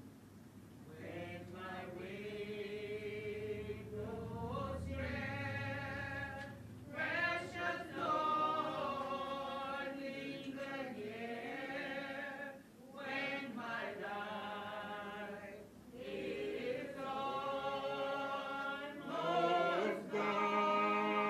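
Choir singing slowly in long held chords, phrase after phrase with short breaks between.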